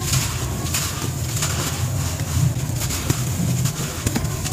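Fine, soft sand being squeezed and crumbled in the hands, crunching with many small irregular crackles as grains pour through the fingers.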